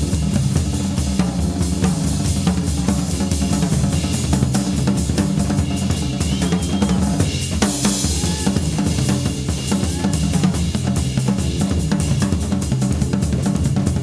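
Jazz drum kit playing a fast, busy groove of snare, bass drum and cymbals, over a steady low Hammond organ line.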